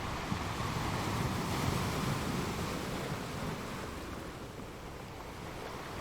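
Ocean surf: a wave breaks and washes in, swelling over the first couple of seconds, then easing off.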